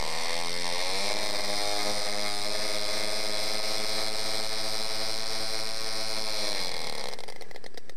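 Radio-controlled B-25 model bomber's engines run up on the ground while the model is held by its tail: they rev up over about the first second, hold a steady high-throttle note, then throttle back to idle near the end.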